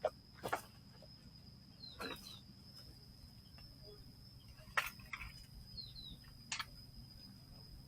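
Quiet outdoor ambience: a few sharp clicks and knocks over a faint steady high tone, with two brief runs of three quick chirps like a small bird's.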